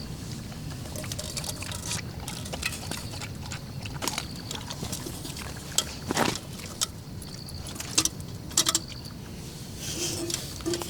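Steady rain noise with a few sharp knocks and clicks, the loudest about six and eight seconds in, like gear being handled.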